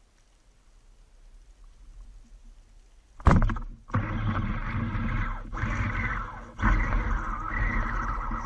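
A rubber-band speargun fires underwater about three seconds in, a single sharp crack. It is followed by loud, continuous churning water noise.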